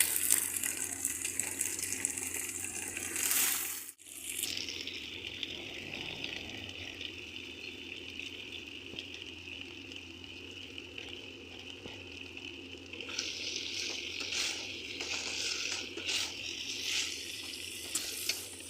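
Potatoes sizzling as they fry in oil in a pan. The sound is a steady hiss at first and turns more uneven in the second half, with a brief break about four seconds in.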